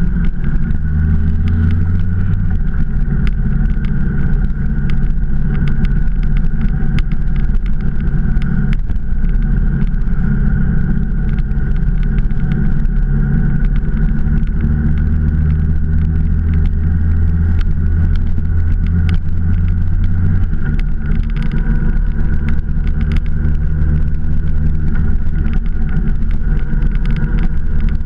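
Motorcycle engine running steadily while riding at road speed, with a haze of road and air noise. The engine note breaks and shifts briefly about nine seconds in.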